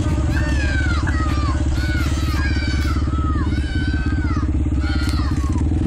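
Motorcycle engines idling and running at low speed with a steady, rapid low pulse. A series of short high calls, each falling in pitch, sounds over the engines.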